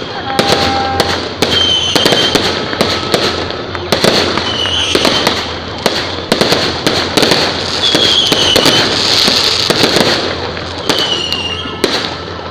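Fireworks display: a dense run of sharp bangs and crackling reports from bursting aerial shells. A short, high whistle-like tone recurs about every three seconds over the bangs.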